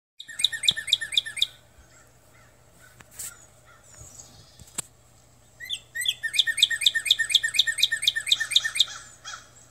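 A songbird singing two phrases of rapid, evenly repeated chirping notes: a short phrase at the start, then a longer one beginning about six seconds in. A faint low hum runs underneath.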